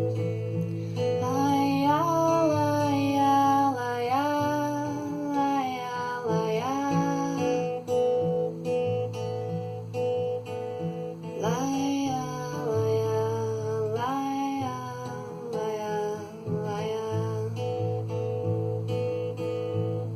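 Acoustic guitar strumming chords, with a voice singing a wordless melody over it in two phrases: one starting about a second in and one about eleven seconds in.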